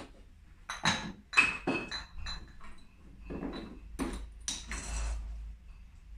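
Glass beer bottles clinking against each other as they are handled during bottling: a series of sharp knocks, each with a brief ringing tone.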